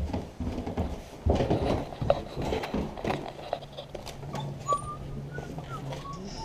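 Footsteps and camera handling knocks as the camera is carried down stairs and out the door, then a steady low hum with a few faint high chirps from about three seconds in.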